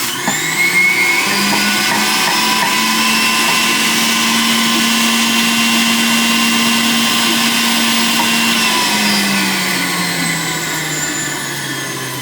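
Breville electric juicer's motor running steadily as fruit is fed through it, a loud, even whir; its pitch drops in the last few seconds.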